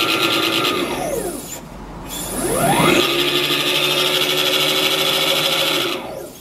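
TECO electric scooter's motor and belt-and-pulley drive running under throttle: a whine that rises in pitch, holds, falls away about a second and a half in, then rises again and holds until it cuts off near the end. Over it is a harsh, fast, even rattling rasp from the drive, the noise of a faulty pulley.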